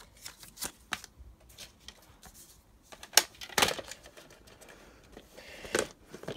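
Hard plastic DVD and VHS cases being handled: an uneven run of sharp clicks and knocks, the loudest a little after three seconds in.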